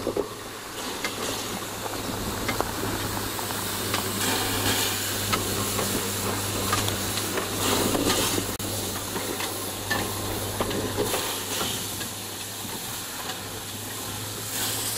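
Small steam tank locomotive running with its carriages: a steady hiss of steam, with scattered clanks and knocks over a low hum.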